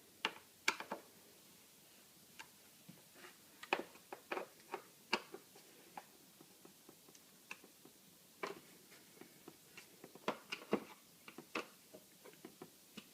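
Irregular clicks and light metallic taps from hand tools turning and seating the screws on a motorcycle's airbox cover, tightened in a cross pattern.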